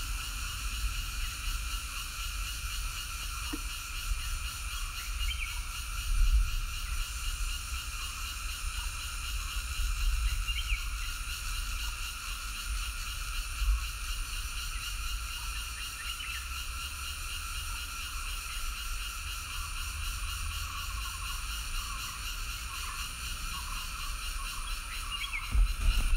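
Steady chorus of frogs and insects trilling in several pitch bands at once, with a few short chirps on top, under a low rumble that swells now and then.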